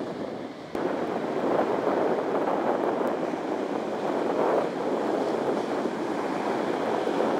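Ocean surf breaking and washing up a sand beach, a steady rush that gets louder about a second in.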